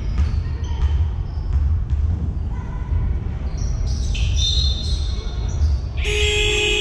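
Basketball game in a sports hall: short high sneaker squeaks on the court and the ball bouncing. About six seconds in, a loud steady buzzer starts and holds.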